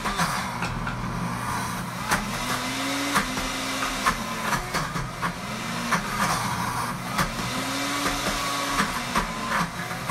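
Pampered Chef Deluxe Cooking Blender motor running on its grind setting, grinding dry roasted peanuts into peanut butter while a tamper pushes them into the blades. The motor's pitch rises and falls again and again as the load changes, with scattered sharp clicks.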